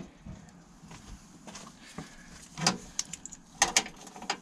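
Metal hand tools clinking and knocking in a few short, sharp hits, with the loudest clusters about two and a half and three and a half seconds in.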